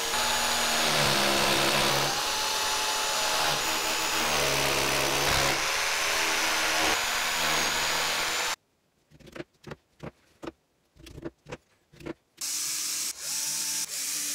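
A corded drill boring into the basement wall, its motor pitch stepping up and down, for about eight seconds before it cuts off suddenly. A few seconds of near silence with brief clicks follow, then from about twelve seconds in a cordless drill-driver runs in short spurts, driving screws through a slotted metal shelf rail.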